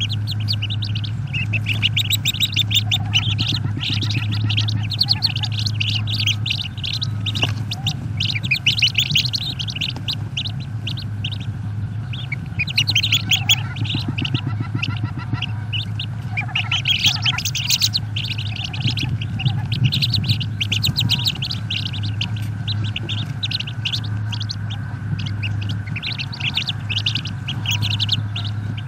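A brood of wood duck ducklings peeping inside their nest box, many high, rapid peeps overlapping without pause. Under them is a steady low hum.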